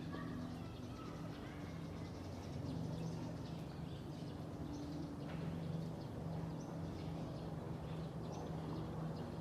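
Outdoor ambience: a low, steady hum with faint, brief bird chirps.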